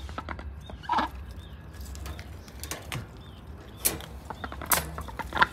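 A duck pecking at pieces of scallop on the floor of a wire cage: irregular sharp clicks and knocks, a few of them louder.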